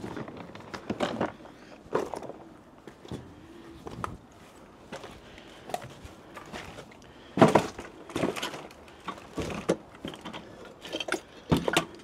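Irregular knocks, scrapes and clatters of someone moving about and handling objects, the loudest a sharp knock about seven and a half seconds in.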